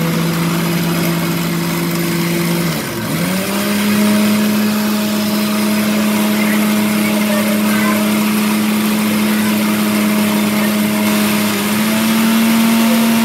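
Electric mixer grinder running with whole spices being ground to garam masala in its small steel jar: a loud, steady motor whine over a noisy grinding hiss. About three seconds in the motor dips and slows, then picks up again at a higher pitch, stepping up a little more near the end.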